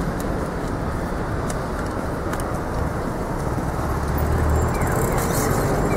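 Steady city street traffic: a continuous rumble and hiss of passing cars and buses, swelling slightly in the second half.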